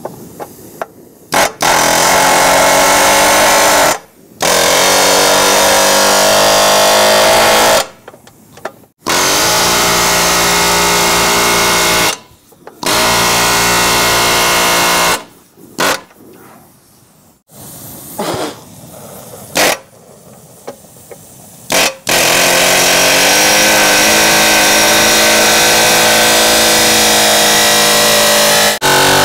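Pneumatic air hammer running in bursts of two to six seconds with short pauses between, hammering stubborn old bushings out of a front control arm.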